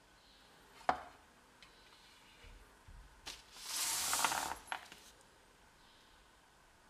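A hand sweeping a pile of dry wood shavings across a sheet of paper on a workbench, a rustling swish lasting about a second past the middle. A sharp click comes about a second in, and another just before the sweep.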